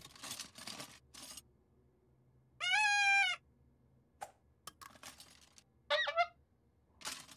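Toys rustling as a toy box is rummaged through, then a toy whistle blown once: a single steady, shrill toot of under a second. About six seconds in comes a second, shorter note that falls in pitch.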